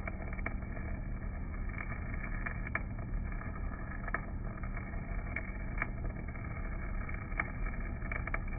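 Stick welding with a basic (low-hydrogen) electrode on a DC rotary welding machine: the arc crackles with scattered sharp pops over a steady low drone.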